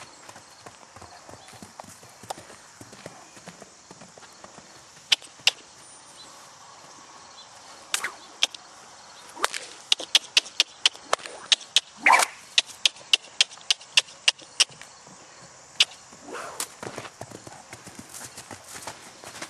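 Hoofbeats of a yearling Quarter Horse/Paint gelding: sharp, scattered hoof strikes that quicken into a fast irregular run of steps around the middle, with a brief louder noise about twelve seconds in.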